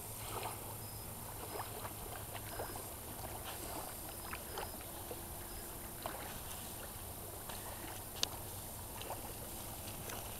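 Quiet outdoor ambience at a lake's sandy shoreline: a steady low rush of water and air, with scattered faint ticks and one sharp click about eight seconds in.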